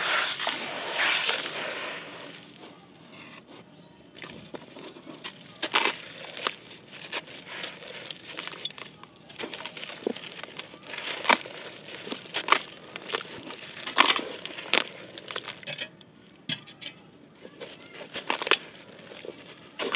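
Wet, gritty sand-clay squeezed and crumbled by hand over a basin of muddy water. For about the first two seconds there is a dense wet rushing squelch. After that come scattered sharp crackles and crunches as gritty chunks break apart and drop into the water.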